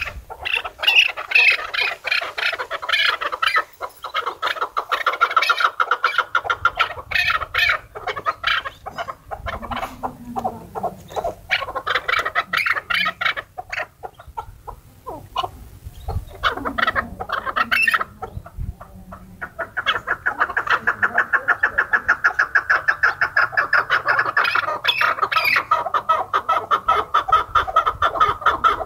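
Caged chukar partridges calling: runs of rapid, repeated clucking chuk notes. After a short pause past the middle, the calls settle into a faster, steady run.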